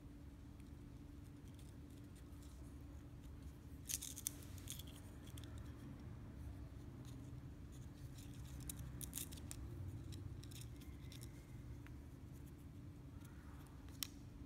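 Small sharp clicks and ticks of hand work: a few about four seconds in, a cluster around the middle and a single one near the end, over a steady low hum.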